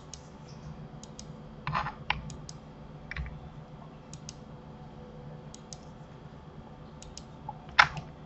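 Sparse, irregular clicks of a computer mouse and keyboard keys being pressed, one louder click near the end, over a faint steady hum.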